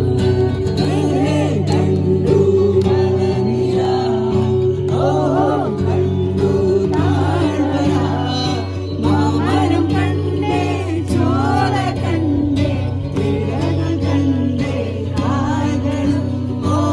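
A song sung with guitar accompaniment: a solo voice carrying a wavering melody over steady, sustained low accompaniment.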